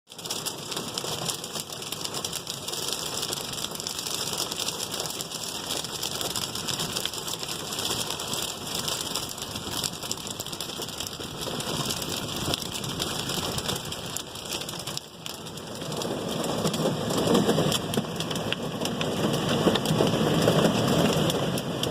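Rainstorm: rain falling steadily, a dense hiss full of individual drop hits. About sixteen seconds in it grows louder and deeper as the rain comes down harder.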